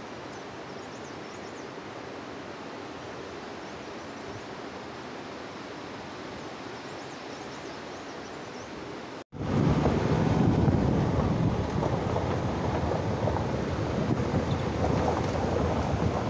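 Steady outdoor hiss with faint high chirps. After a sudden cut about nine seconds in, it gives way to much louder wind buffeting the microphone over the low rumble of a vehicle driving on a rough mountain road.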